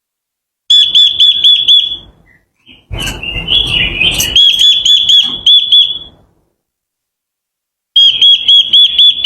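Quế lâm songbird singing: three loud bouts of a rapid string of repeated high whistled notes, separated by short pauses. This is a lure song played to excite other birds into singing.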